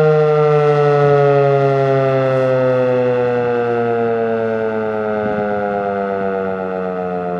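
Federal Signal 2001-DC electromechanical tornado siren winding down after its steady Alert signal: a chord of tones sliding slowly and steadily down in pitch while growing gradually quieter.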